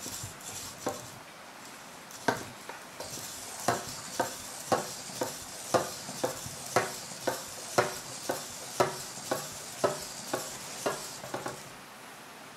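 EMO desktop robot pet (Living AI) walking on a wooden tabletop: its feet tap about twice a second, with a faint high whir of its leg motors underneath. The steps start about two seconds in and stop near the end.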